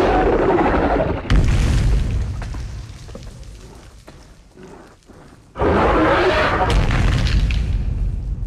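Two deep, rumbling roars of a Carnotaurus dinosaur sound effect. Each starts suddenly and tails off over a few seconds, with a heavy low rumble under them; the second comes about five and a half seconds in.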